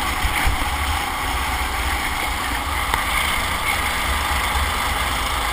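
Go-kart engine running steadily at racing speed, heard from a camera mounted on the kart, under a heavy low rumble.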